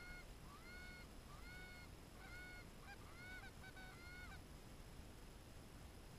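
Canada geese honking faintly, a series of rising-and-falling calls with several birds overlapping toward the end, stopping about four seconds in.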